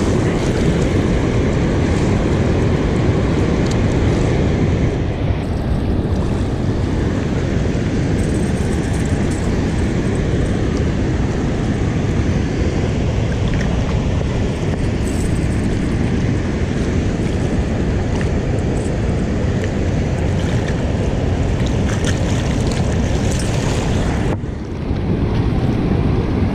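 Steady rushing roar of water pouring through the spillway gates of a dam and churning in the river below, mixed with wind buffeting the microphone. The noise dips briefly near the end.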